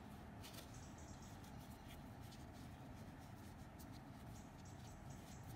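Near silence with a few faint scratchy rustles and ticks: a needle and yarn being drawn through crocheted fabric as the piece is hand-sewn.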